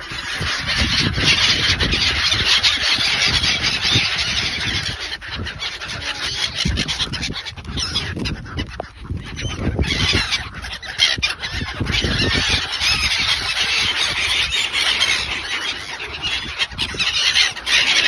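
A flock of black-headed gulls calling constantly, many harsh overlapping calls at once, easing briefly about nine seconds in.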